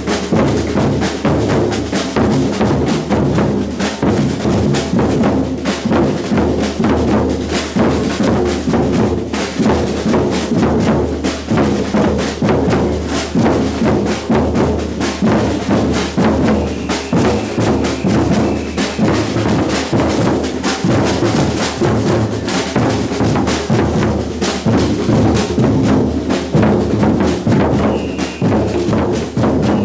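Batucada samba percussion ensemble drumming a continuous, dense rhythm: deep bass drums under snare drums and sharp, high, wood-block-like strikes.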